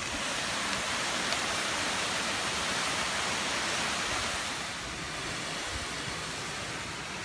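A small waterfall pouring down a rock face, a steady rushing of falling water that eases slightly a little past halfway.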